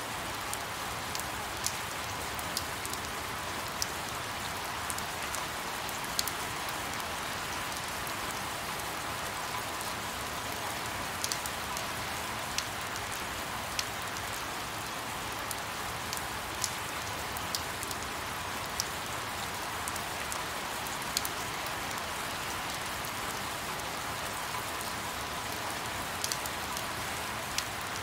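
Sped-up rain recording: a steady hiss of rainfall with many scattered sharp drop ticks.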